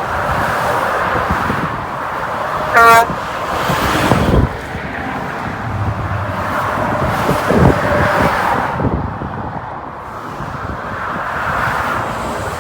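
Highway traffic passing steadily, with one short, loud truck horn blast a little under three seconds in.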